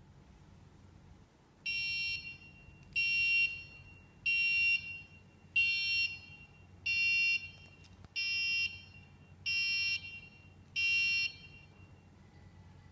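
Arduino gas alarm's buzzer beeping eight times, each high-pitched beep about half a second long and about 1.3 seconds apart, starting about two seconds in: the alarm sounding because the gas sensor has detected gas.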